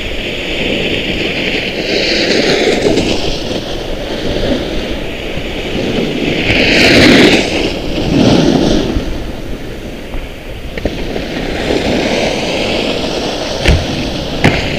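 Wind buffeting the camera's microphone: a steady rush that swells twice into louder gusts of hiss. Near the end come a few sharp knocks as a Trikke Skki's skis hit the rail box.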